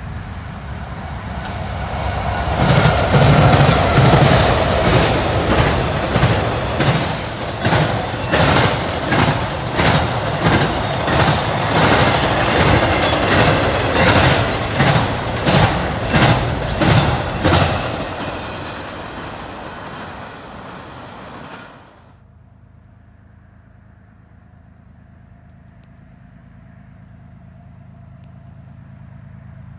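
Norfolk Southern diesel-hauled freight train passing close: a rising rush as the locomotives arrive and go by, then the cars with a rapid, evenly repeating clickety-clack of wheels over rail joints, fading away. After a sudden drop, a faint low rumble with a steady tone slowly grows louder as another distant train approaches.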